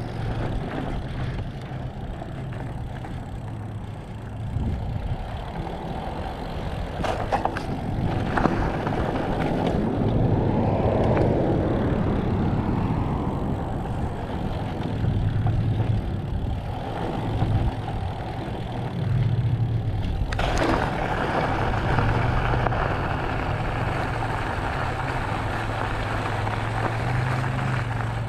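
Mountain bike riding over rock: continuous rolling rumble with a few sharp clicks and rattles, growing noticeably hissier about two-thirds of the way in.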